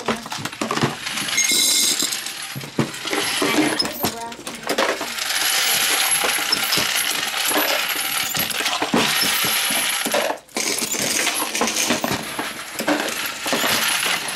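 Continuous metallic clinking and clatter of brass 9mm cases and loaded rounds as a Dillon 1100 progressive reloading press is cycled, with a short break about ten seconds in.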